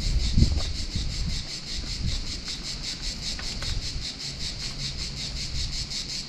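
Cicadas singing, a steady rapid pulsing buzz, with a few low thumps of wind or handling on the microphone.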